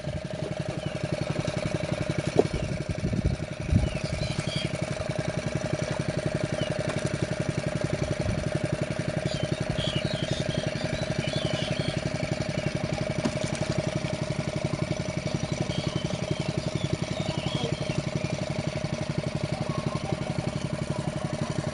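Small engine driving a water pump, running steadily at a constant speed, with a few dull thumps about three to four seconds in.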